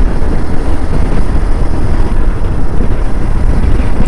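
Steady wind rumble on the rider's microphone while riding at speed on a Hero Xpulse 200 4V motorcycle, with the bike's single-cylinder engine running underneath.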